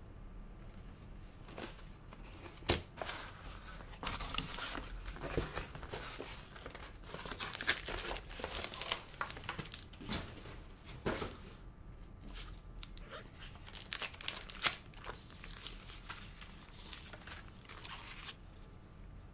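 Accessory packaging being handled and opened by hand: cardboard box and plastic wrapping crinkling, with a few sharp knocks and taps. It settles near the end.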